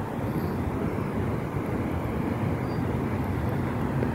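Steady roar of Niagara's Horseshoe Falls: a continuous deep rushing rumble of falling water, unbroken throughout.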